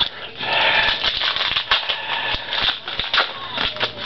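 Crinkling of a foil trading-card pack wrapper and cards being handled, with many quick small clicks and rustles.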